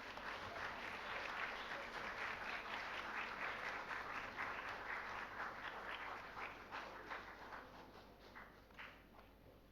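Audience applauding, the clapping growing sparser and fading out near the end.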